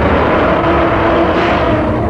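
Loud, steady, rough monster roar sound effect with a few held tones in it, made from Showa-era Toho kaiju roars layered with big cat growls.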